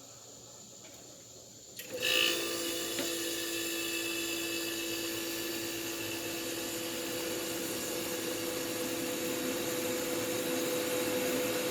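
A 1975 Westinghouse Custom 20 dehumidifier switched on about two seconds in, its fan motor starting and then running with a steady hum and whir.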